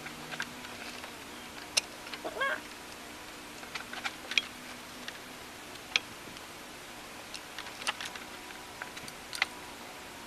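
Scattered light clicks and taps of hands and tools handling parts in a car's engine bay, irregular and a second or two apart. A short rising squeak comes a little over two seconds in.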